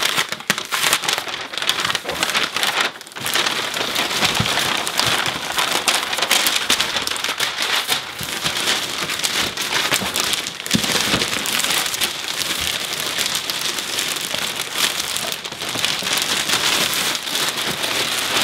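Continuous crinkling and crackling of tissue paper and clear plastic wrap being handled and pulled off a box while it is unpacked.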